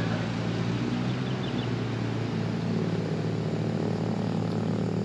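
A steady mechanical hum with a low, even drone.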